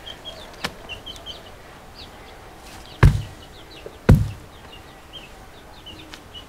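Two dull thuds about a second apart, a few seconds in, as handfuls of wet mud are slapped and packed onto the adobe wall of a clay stove. Small birds chirp repeatedly.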